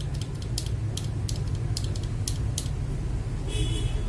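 Mechanical keyboard switches pressed by hand in quick succession, giving light, sharp clicks at an uneven pace of a few per second, with a steady low hum underneath and a brief hiss near the end.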